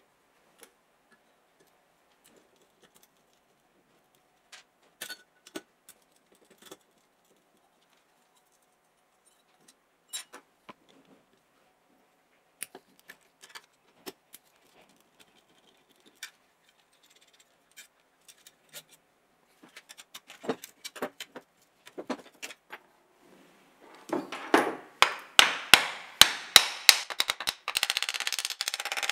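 Scattered clicks and light knocks of metal parts handled on a wooden workbench, then about five seconds before the end a rapid run of loud knocks, about three a second: the cut-off saw's metal motor housing with its stator inside being knocked against the bench to shake out rust and dirt.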